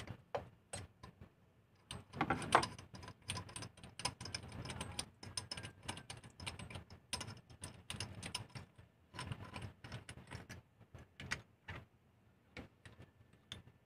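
Irregular metallic clicks and clinks of hand tools working on an engine as its spark plugs are taken out, in quick runs with short pauses between.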